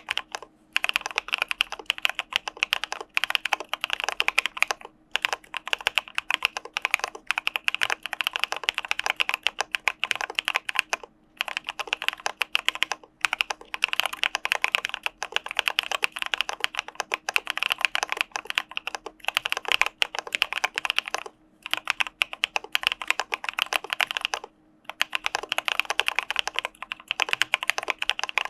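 Typing on an Arisu mechanical keyboard with CPSD (Cà Phê Sữa Đá) linear switches: fast, continuous keystrokes, broken by a few brief pauses.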